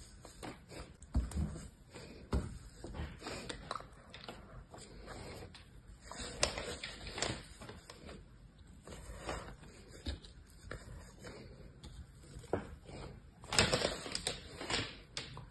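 Small plastic stamps pressed into kinetic sand, with soft sandy scraping and irregular light clicks and taps of plastic being handled and set down; the loudest cluster of knocks comes near the end.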